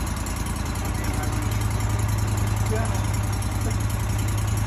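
Wood-Mizer LT40 portable sawmill's engine idling steadily, with no blade cutting.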